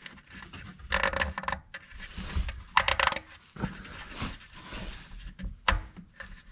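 Metal drain plug being threaded by hand into a Ford Fusion Sport's oil pan: light metallic clicks and clinks in short clusters about one and three seconds in, with one sharp click near the end.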